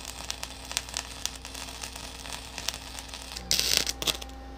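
Electric arc welder crackling and sputtering as a steel bracket is welded, over a steady low hum. About three and a half seconds in the crackle becomes much louder and hissier, heard at close range.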